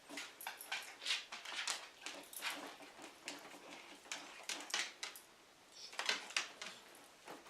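A dog making short, irregular breathy puffs close to the microphone, with a brief pause just past the middle.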